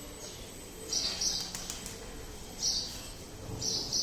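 A bird chirping in the background, short high double chirps repeated about every second and a half.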